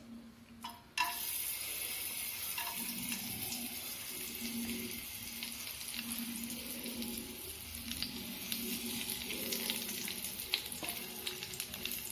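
Cashew nuts and raisins frying in hot ghee in a kadai. The sizzling starts suddenly about a second in as they hit the ghee, then runs as a steady sizzle with scattered crackles.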